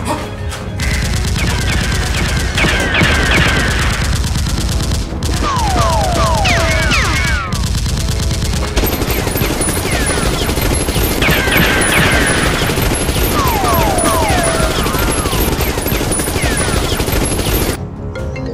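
Sustained rapid automatic-gunfire sound effects over background music, broken by repeated short falling whistles. The firing cuts off abruptly near the end.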